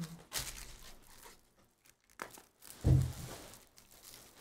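Foil wrapper of a Panini Donruss basketball card pack crinkling as it is torn open and the cards are pulled out, with a dull thump about three seconds in.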